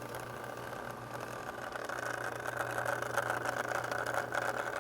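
Carrier Performance HVAC unit running: a steady low hum under a hissing, gurgling noise that sounds like a coffee machine brewing, growing louder about two seconds in.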